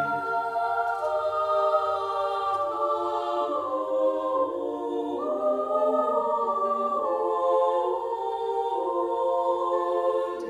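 Slow, quiet sacred music: several voice parts hold long chords that shift every second or two.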